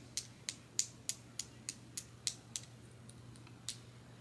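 One hand snapping its fingers in a steady run of sharp snaps, about three a second, as applause, with one last snap after a short pause near the end.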